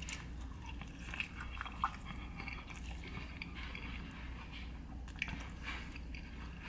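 A person chewing a mouthful of breakfast burrito, close to the microphone: soft wet mouth sounds with scattered small clicks.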